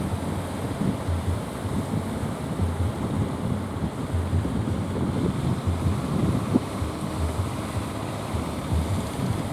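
Wind buffeting the microphone in uneven low gusts over a steady wash of sea surf.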